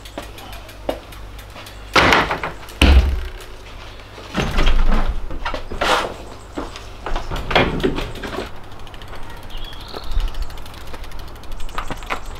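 Knocks, thumps and rattles of a road bike being lifted down from a wall hook and wheeled out through a curtained doorway. The loudest is a heavy thump about three seconds in, and the handling sounds die down after about eight seconds.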